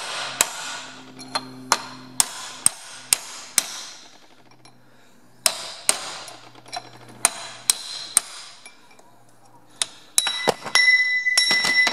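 Hammer driving a punch against the steel bearing cup in a Ferguson TE20 tractor's rear axle housing, to knock the cup out. Sharp metal strikes come in runs of several, with a short pause about four seconds in. Near the end the blows come quicker and the metal rings.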